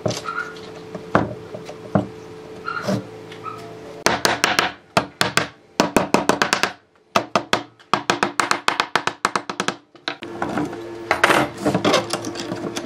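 Mallet knocking on a clamped pine frame: a few separate knocks, then quick runs of taps, several a second, to seat the glued joints.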